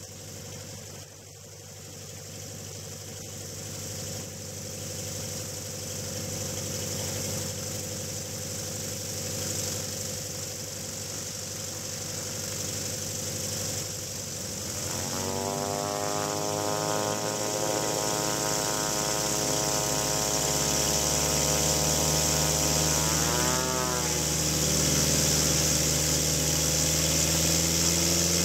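Light-aircraft piston engine idling with the propeller turning: a steady hum over a constant hiss, slowly growing louder. About halfway through, a second engine note with a clear pitch joins in, and later it briefly dips and rises in pitch.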